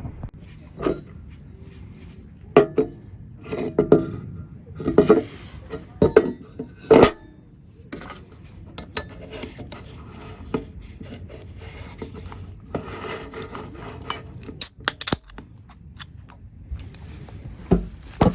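Tableware and drinkware being handled: a string of separate clinks, knocks and clatters, the sharpest of them in the first seven seconds, more around fifteen seconds in and one near the end.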